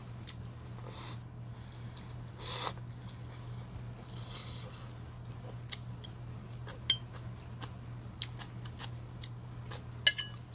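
Ramen noodles slurped in two short noisy pulls, followed by chewing and small mouth clicks. Near the end, a sharp ringing clink of metal chopsticks against the bowl. A steady low hum runs underneath.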